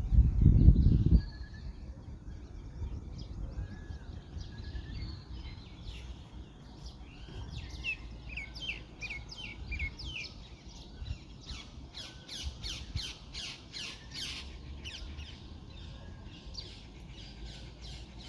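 Wild birds chirping and calling, with a quick run of chirps at about four a second in the middle. A loud low rumble on the microphone fills the first second.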